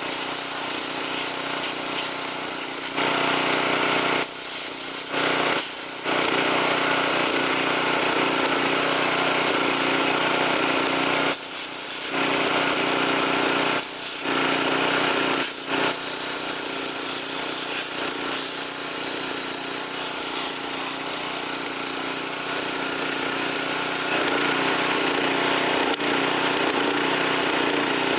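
Steady, loud running noise from motorized shop machinery, with brief dips in level a few times.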